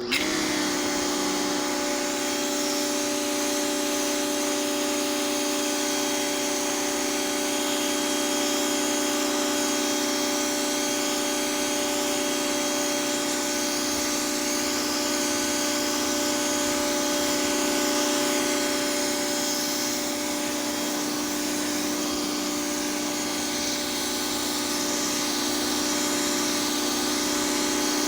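High-pressure washer starting up and running steadily while spraying water onto pavement: a steady motor-and-pump hum with several fixed tones over the hiss of the water jet.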